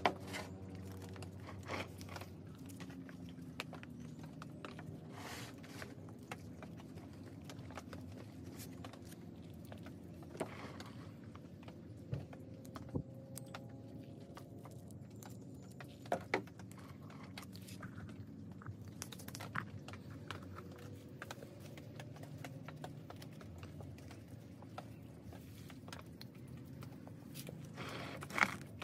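Hands pressing and working loose potting soil around a bonsai's roots in a pot: soft crunching and rustling with scattered light knocks and clicks.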